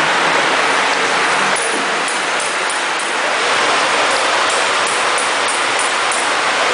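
Compact collet lathe running, its spindle turning as the tooling works a small part, heard as a loud, steady mechanical hiss. Faint light ticks repeat through it.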